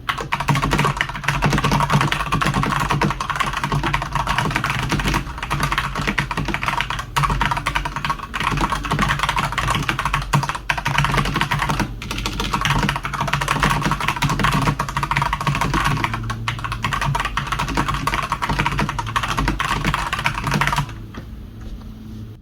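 Rapid, continuous typing on a Redragon Sindri K671 mechanical keyboard with Outemu Red linear switches: a dense run of key clacks that stops near the end.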